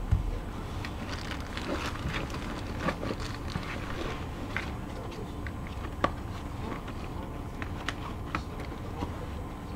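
Steady low hum inside a stationary commuter train carriage, with scattered light clicks and taps.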